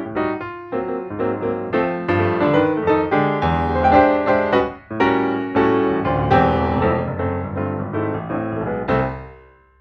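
Background piano music, many notes played in quick succession, fading out near the end.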